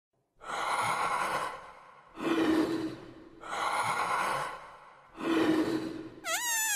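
A person breathing heavily: four long breaths, in and out in turn, the second and fourth with a slight voiced groan. Near the end a high wavering squeal with many overtones starts and slowly falls in pitch.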